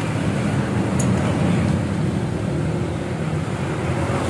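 Steady low rumble of street traffic with motor engines running, and one brief sharp click about a second in.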